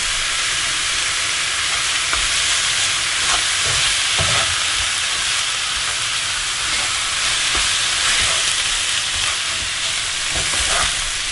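Mutton chops and sliced onions sizzling steadily in a little oil in a non-stick frying pan, with a black spatula scraping and knocking against the pan now and then as they are stirred.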